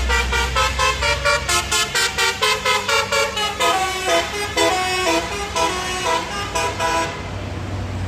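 Bus basuri telolet horn playing a quick melody of short pitched toots, about four notes a second, stopping about seven seconds in; engine and road noise carry on after it.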